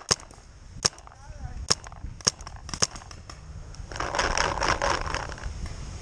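Paintball marker firing single shots: five sharp cracks at uneven intervals over the first three seconds. About four seconds in comes a second-long burst of noise.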